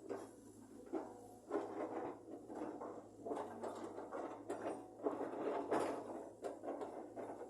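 Caterpillar 320 GC excavator at work: irregular scraping and knocking strokes over a steady low hum.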